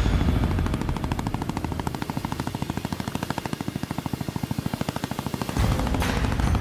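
Tandem-rotor helicopter hovering close by, its blades beating in a fast, even chop. A deep rumble swells back in about five and a half seconds in, with a short rush of hiss just after.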